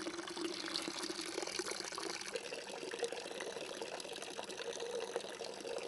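Faint, steady trickle of water in a small glass jar used as a model well, as a toy bucket on a string dips into it.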